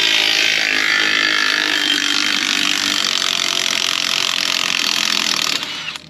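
Cordless impact wrench hammering steadily on a camper wheel's lug nuts, one continuous run that stops near the end.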